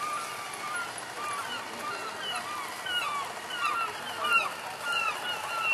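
A flock of birds calling: many short, overlapping calls, several a second, continuing throughout.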